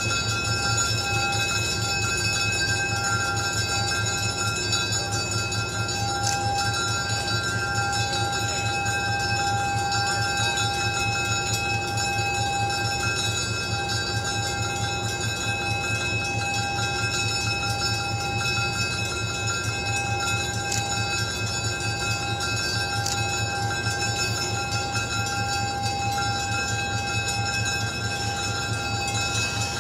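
EMD SW9 switcher locomotive's 12-cylinder EMD 567 diesel engine running steadily at low throttle, an even throb with a steady high whine over it.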